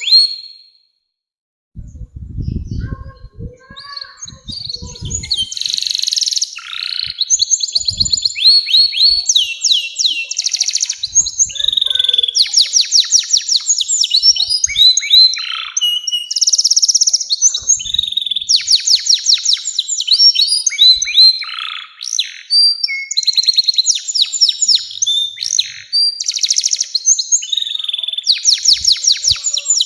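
Domestic canary singing a long song of rapid rolling trills, fast repeated notes and whistled glides, in phrases broken by short pauses. Low thuds sound under the song a couple of seconds in.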